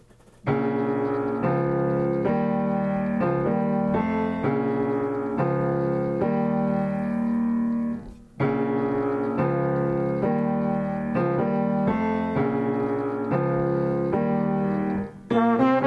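Grand piano playing a slow jazz introduction in held chords that change about once a second, in two similar phrases with a brief break about halfway.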